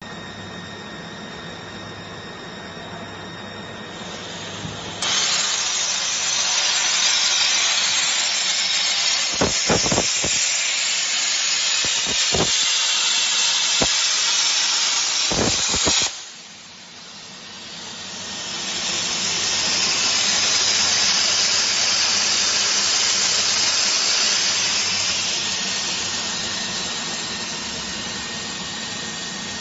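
CNC plasma cutting table: a low machine hum with a faint steady whine, then about five seconds in the plasma arc strikes with a sudden loud hiss as the torch cuts sheet metal, with a few sharp crackles, cutting off abruptly about sixteen seconds in. A second steady hiss then swells and slowly fades.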